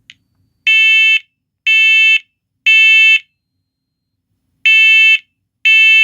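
First Alert PC1210V photoelectric smoke and carbon monoxide alarm sounding its smoke alarm when tested: loud, even beeps about half a second long, three in a row a second apart, a pause, then the next set of three starting. This three-beep temporal pattern is the standard signal for smoke.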